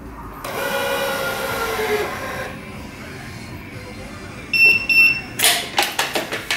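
Wise 2086 electronic tension head pulling a badminton string to tension: a motor whine that slides slowly down in pitch for about two seconds. Then come two short electronic beeps, followed by a quick run of sharp clicks from the stringing machine's clamps near the end.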